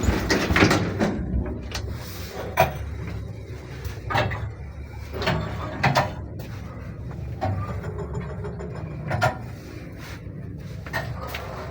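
1978 Samara Lift Plant (SamLZ) elevator car running in its shaft: a steady low hum with irregular creaks and knocks every second or two from the squeaking cabin.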